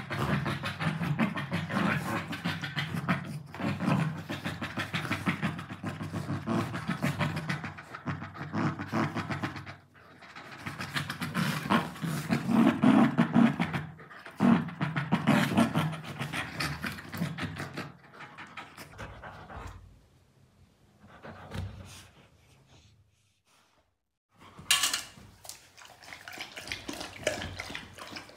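A yellow Labrador Retriever and a German Shepherd puppy panting and making play noises as they tussle over a pillow. The sound dies away about two-thirds through. Near the end a Labrador laps water from a steel bowl.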